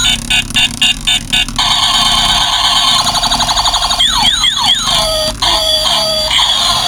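Electronic sound effects from a light-up toy spinning top's built-in sound chip: rapid beeping, then a warbling siren-like tone, a fast trill, and a run of quick falling zaps about four seconds in before the warbling resumes.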